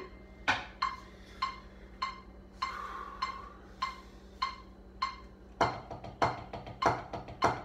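Drumsticks on a drum practice pad: light, evenly spaced taps a little under two a second, then about five and a half seconds in a fast, louder run of strokes.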